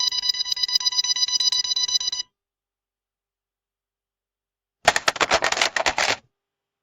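A rapidly pulsing electronic beep, one ringing tone repeating several times a second, for about two seconds and then cutting off. A couple of seconds later comes a burst of fast sharp clicks lasting just over a second.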